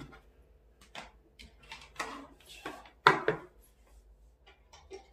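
Handling noise from a lamp cord and its plug: a few scattered clicks and knocks, the loudest a sharp knock about three seconds in.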